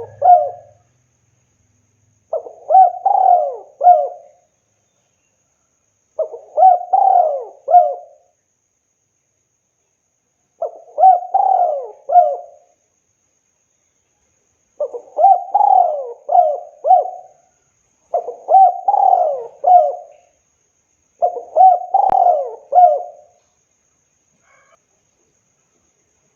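Spotted dove (tekukur) cooing: a phrase of several throaty coos, repeated about every three to four seconds with short silences between, six full phrases in all.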